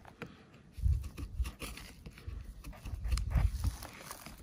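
A knife blade scratching and scraping into the wood of a bench as letters are carved, in short irregular strokes with a few dull knocks.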